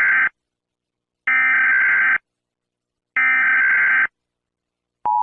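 Emergency Alert System SAME header: three harsh digital data bursts about a second long each, a second apart, the first ending just after the start. About five seconds in, the steady two-tone EAS attention signal begins.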